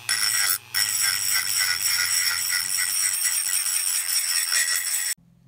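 Handheld rotary tool running at high speed with a small bit against a metal lens barrel section, scrubbing off salt crust and rust: a steady high whine with a gritty rattle. It drops out briefly just under a second in and cuts off sharply near the end.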